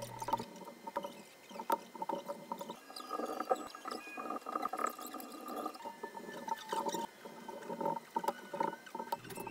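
Blue painter's tape being pulled off the roll in short, squeaky strips and pressed down across the seams of plywood panels, with light taps of hands and tape on the wood.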